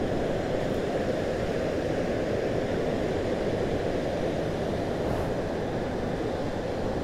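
Steady low rumbling noise of a Royal Enfield Bullet 350 motorcycle being ridden, mixed with water rushing over a river weir.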